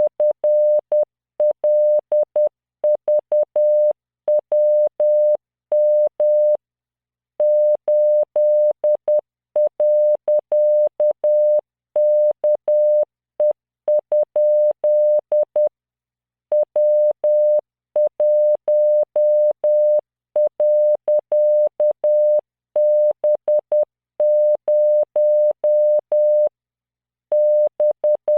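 Morse code played as a computer-generated 600 Hz tone at 10 words per minute. It is keyed on and off in dots and dashes, sending random five-character practice groups with pauses of about a second between groups. Faint clicks mark each keying edge.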